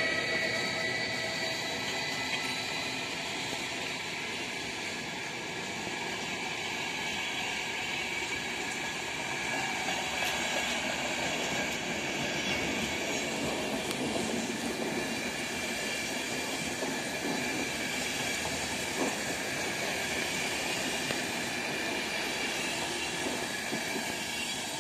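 Freight train of loaded car-carrier wagons rolling past, its wheels squealing high and thin, fading over the first few seconds. From about nine seconds in, a locomotive-hauled passenger train approaches and passes close, its wheels rumbling and clattering over the rails.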